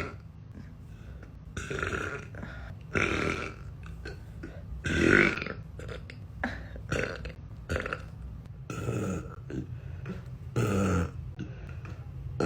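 A woman belching again and again: a string of separate burps a second or two apart, some short and some drawn out to about half a second.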